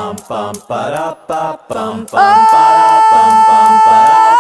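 A cappella singing: short, rhythmic sung syllables, then about two seconds in a long held note.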